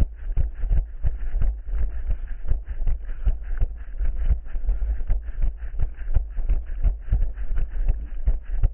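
Running footsteps thudding evenly, about three a second, over a steady low rumble.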